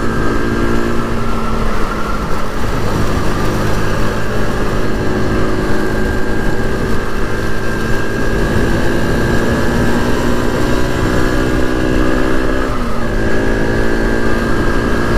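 SYM VF3i 185 scooter's single-cylinder engine running steadily at riding speed, with wind rumble on the microphone. The engine note dips briefly and rises again a little before the end.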